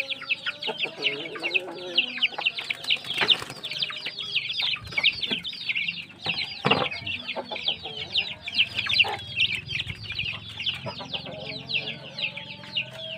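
Kampung chicks peeping continuously, many quick downward-sliding peeps a second, with hens clucking lower beneath. Two sharp knocks, about three and about seven seconds in.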